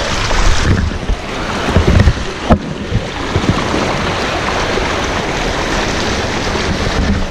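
A pickup's front tire pushing through shallow, flowing floodwater on a bridge deck, water splashing and rushing along the side of the truck, with a few low thumps around two seconds in.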